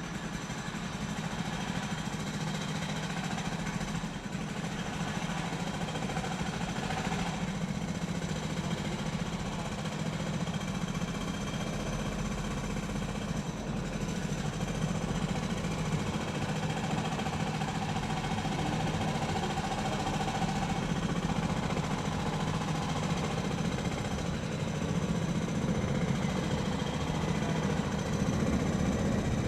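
Construction-site ambience: a machine's engine running steadily, with a constant low hum, growing slightly louder near the end.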